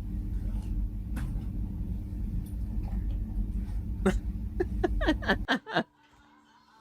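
Low wind rumble on an outdoor microphone. Near the end, a quick run of about half a dozen short pitched calls comes in, and both the rumble and the calls cut off suddenly.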